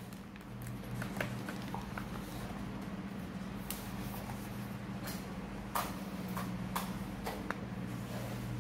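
Quiet room tone: a steady low hum with scattered faint clicks and taps.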